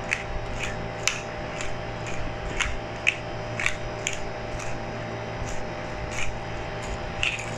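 Hand-twisted black pepper grinder crunching peppercorns, a short gritty rasp about twice a second with each twist.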